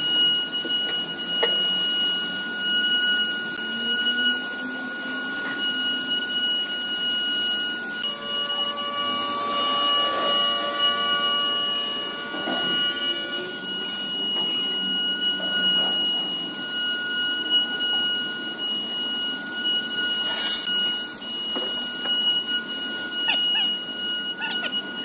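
CNC router spindle and drive giving a steady high-pitched electrical whine, a constant tone with its overtones. A second set of lower tones joins from about 8 to 13 seconds in, with a few faint knocks along the way.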